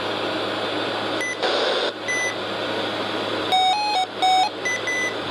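Short electronic beeps from weather alert radios. There is a single beep about a second in and another around two seconds, then a quick run of beeps at several different pitches around three and a half to four and a half seconds, and two short beeps near the end. A steady hiss runs underneath.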